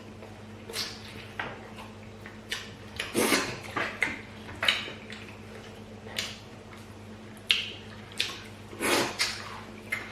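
Eating sounds of fufu with pepper soup: a dozen or so short, irregular clicks, knocks and wet smacks from bowls and mouths, over a faint steady hum.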